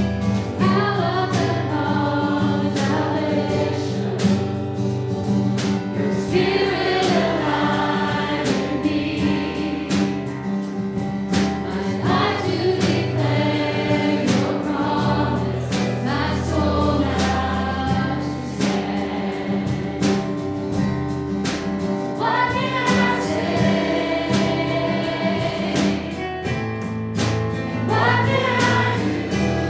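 Church congregation singing a contemporary worship song together, accompanied by strummed acoustic guitar.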